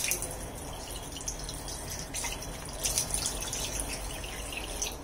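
Water from a sink tap splashing as hands rinse a face, with irregular splashes and drips: a sharp splash right at the start and a cluster of them about three seconds in.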